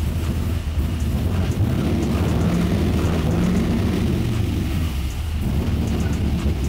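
LS3 V8 engine running, its turbos not yet hooked up, with a steady low rumble; the engine note swells briefly in the middle and dips for a moment near the end.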